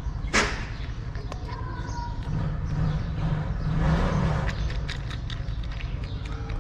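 Cat crunching dry kibble, a quick scatter of small crisp clicks that thickens in the second half, over a steady low rumble of traffic. A brief sharp swish comes about half a second in, and a louder rush of noise near four seconds.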